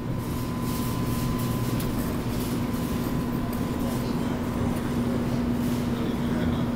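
Claw crane machine running during a grab: a steady mechanical hum with a constant low tone, from the claw gantry's motors and the cabinet.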